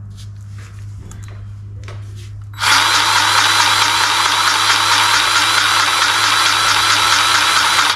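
Impact wrench hammering for about five seconds, starting suddenly a few seconds in and cutting off sharply: a lug nut being loosened to take the wheel off.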